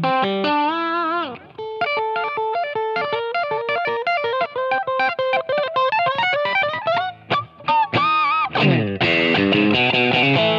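Electric guitar: an MJT Strat-style guitar fitted with DiMarzio Virtual Vintage 54 Pro and Heavy Blues 2 pickups, played through a POD amp modeller, playing a lead line of single notes with string bends and vibrato. About three-quarters of the way through it moves into fuller, lower chords.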